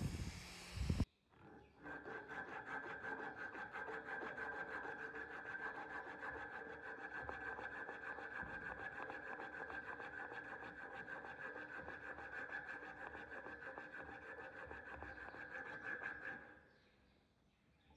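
A brief burst from an angle grinder's sanding disc on the handle, then a strip of sandpaper pulled rapidly back and forth around a wooden knife handle, shoeshine style: a fast, even rasping that stops near the end.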